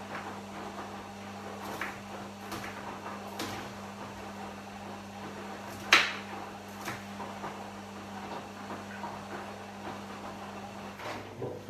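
Kitchen knife knocking on a wooden cutting board as onion is chopped, in slow, uneven strokes, with one louder knock about six seconds in. A steady low hum runs underneath and stops near the end.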